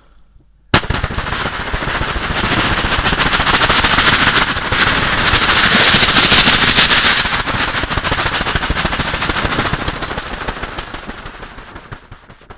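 Vocal imitation of an Apache attack helicopter, made by mouth into a microphone: a fast, continuous rotor chop. It starts suddenly about a second in, grows louder to a peak in the middle and fades away toward the end.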